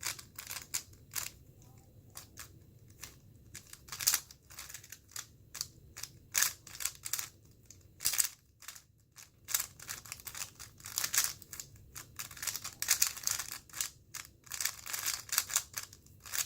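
Moyu Weilong GTS2M 3x3 speedcube being turned fast during a solve: quick runs of plastic clicks and clacks as the layers turn, in bursts broken by short pauses.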